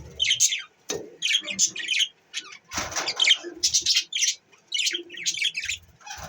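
Budgerigars chattering in a rapid run of short, high chirps, with a sharp click about a second in and a brief noisy rustle around three seconds in.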